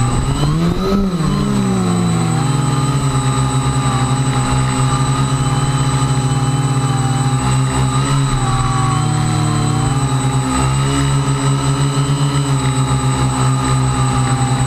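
A radio-controlled aircraft's motors and rotors running with a steady buzzing hum and a high whine. About a second in the pitch rises and falls back as the throttle changes, then holds fairly steady with small wobbles.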